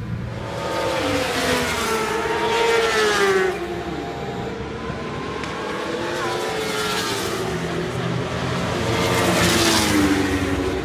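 Racing motorcycles passing at speed on the track, their engine note dropping in pitch as each goes by. The two loudest passes come about three seconds in and near the end.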